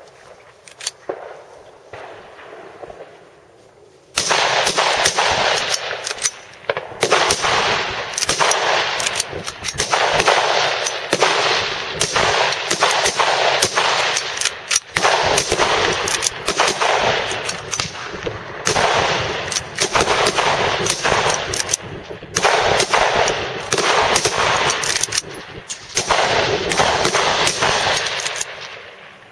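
Several service rifles firing in quick, overlapping succession along a firing line, the shots running together with ringing echo. The firing starts about four seconds in and goes on with a few brief lulls.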